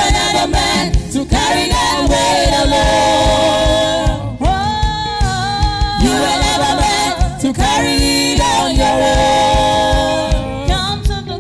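Church choir singing a gospel song in several phrases of long held notes over a steady low beat, without clear words.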